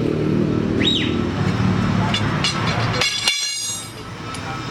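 Heavy truck's diesel engine running steadily, with a brief high-pitched whistle about a second in and a short loud, buzzing burst about three seconds in, after which the sound drops.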